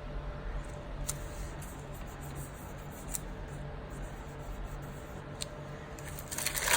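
Paper sticker sheets being handled over a steady low hum: a few faint light ticks, then louder crinkling near the end.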